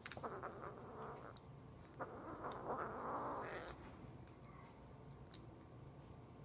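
Young kitten eating wet cat food from a spoon and making small cat sounds: a short cry falling in pitch right at the start and a longer one from about two seconds in, with faint clicks of chewing.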